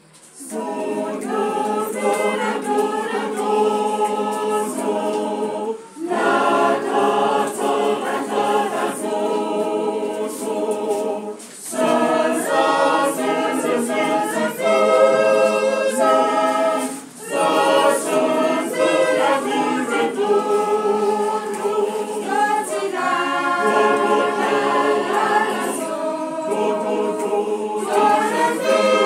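Choir singing unaccompanied, in phrases separated by brief breaks every few seconds.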